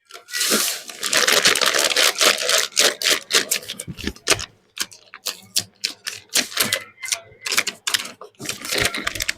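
Crinkling and crackling of a plastic blind-bag wrapper being handled and opened: a dense run of irregular crackles for the first few seconds, then sparser separate crackles and clicks.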